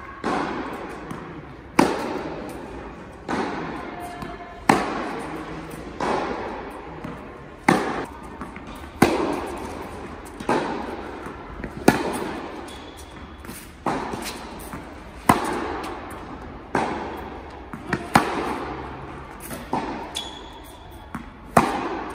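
Tennis rally in a large indoor tennis hall: rackets striking the ball and the ball bouncing, a sharp pop about every one and a half seconds, each ringing out in a long echo off the hall.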